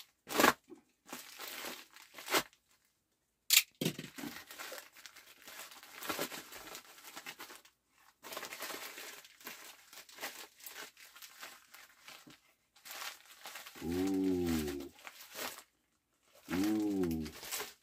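Thin plastic wrapping around a golf putter head crinkling and tearing as it is pulled and worked at by hand, in a string of short rustles and rips. Near the end, two short hums from a man's voice.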